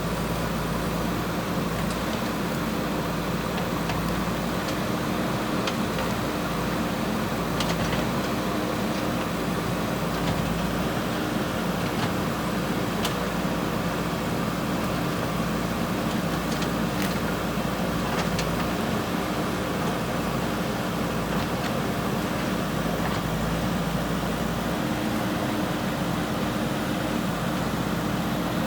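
JCB 3DX backhoe loader's diesel engine running steadily, with a few faint clicks and knocks.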